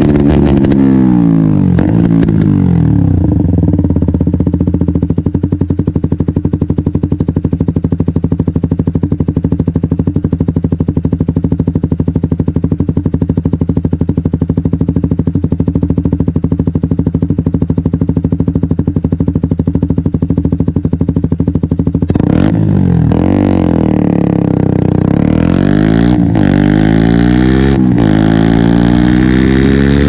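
KTM 125 Duke's single-cylinder four-stroke engine: the revs fall off at first, then hold at a steady low note for a long stretch. About three quarters of the way through it revs up and pulls away, the pitch climbing in repeated sweeps with short breaks between them, like gear changes.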